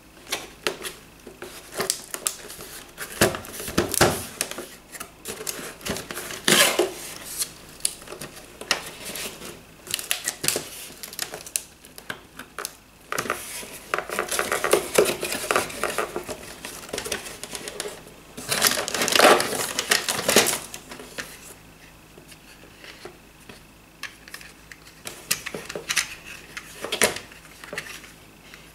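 Cardboard packaging and plastic toy airplane parts handled by hand as the box is opened: irregular clicks, scrapes and crinkly rustles, with two longer stretches of scraping about halfway and about two-thirds through.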